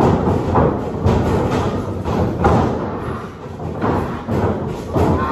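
A wrestling ring thudding under running and stepping feet: a series of heavy, irregular thuds from the mat and the boards beneath it as two wrestlers move in and lock up.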